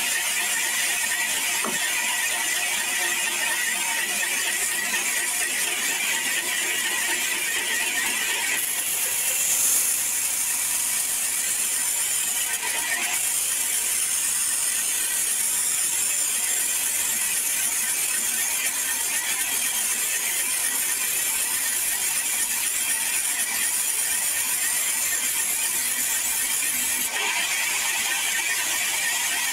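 Sawmill band saw running and ripping a long log lengthwise, a steady mechanical hiss and whine. The sound grows brighter and harsher from about a third of the way in, while the blade is in the wood, and eases back near the end as the cut finishes.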